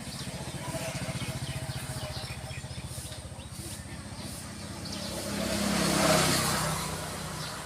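A motor vehicle's engine running with a rapid, even pulse. It grows louder to a peak about six seconds in as it passes, then fades.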